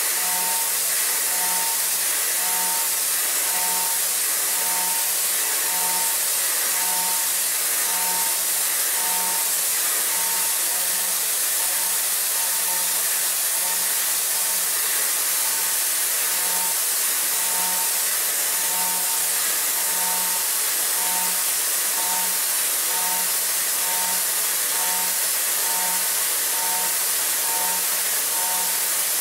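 DMG MORI CMX1100V vertical machining center high-speed milling a pocket in a metal block with a Sandvik end mill in a hydraulic holder: a steady high hiss of the spindle and cut, with a tone that pulses about one and a half times a second as the tool's load rises and falls.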